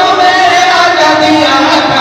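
Voices singing an Islamic devotional chant unaccompanied, in long held, wavering melodic lines.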